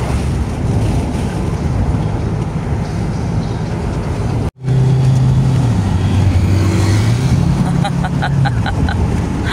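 Engine and road noise of a Hyundai H1 campervan on the move, heard from inside the cabin. After a brief cut about halfway through, a steady engine hum drops in pitch, then rises again. Near the end comes a quick run of short, high ticks, about six a second.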